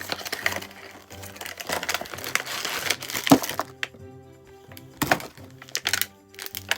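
Background music with steady held notes, over a few sharp crackles and clicks from a plastic snack packet being handled.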